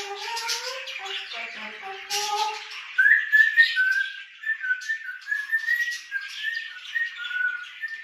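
African grey parrot vocalising: about three seconds of low, wavering, voice-like calls, then a run of short whistled notes stepping up and down in pitch like a tune.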